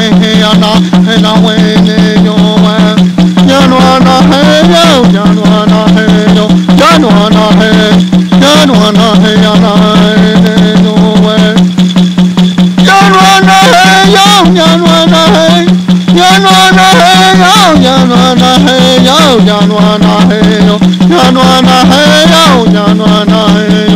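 Background music: a sliding, wavering melody over a constant low drone and a fast, even beat.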